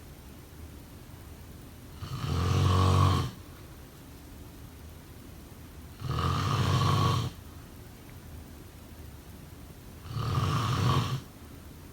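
A person snoring in a slow, even rhythm: three loud snores, each a little over a second long, about four seconds apart.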